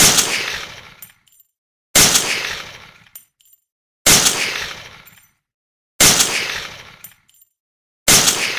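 M200 Intervention sniper rifle shot sound effect, played five times about two seconds apart. Each shot hits sharply and trails off over about a second, followed by a few faint high clicks.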